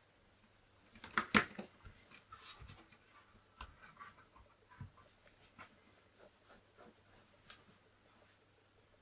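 Irregular clicks, taps and rustling of hands handling an opened Commodore 64 and its parts, with a sharp clatter about a second and a half in.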